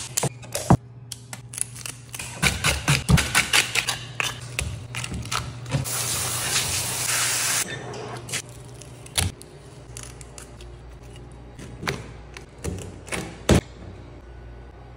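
Knife work on a whole snapper on a plastic cutting board: a quick run of scraping clicks and knocks, then a hissing spray for about a second and a half about six seconds in, and a few scattered knocks after, over a steady low hum.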